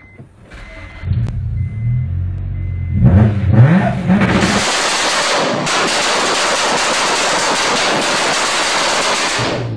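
Supercharged Honda Integra DC5's four-cylinder engine, heard from inside the car. It starts about a second in and is blipped a few times. From about halfway it is held on the launch-control rev limiter, a dense, continuous crackle of rapid ignition-cut bangs that sounds like automatic gunfire, and this cuts off just before the end.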